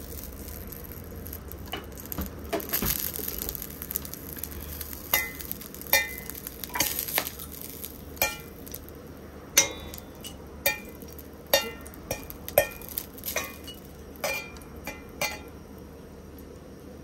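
Oil sizzling in a hammered wok with sansho peppercorns, then a steel wok ladle clinking against the wok about a dozen times, each clink sharp and ringing briefly, over the steady sizzle.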